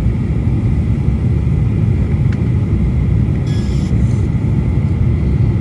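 Steady low rumble of engine and airflow noise inside a Boeing 737 cabin on final approach, with flaps and landing gear extended. A brief, fainter higher-pitched sound rises over it about three and a half seconds in.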